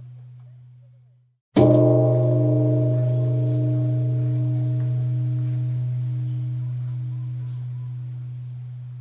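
Large Buddhist temple bell struck once, about a second and a half in: a deep steady hum under many higher overtones that ring on and slowly fade. Just before the strike, the previous toll's dying ring drops away to silence.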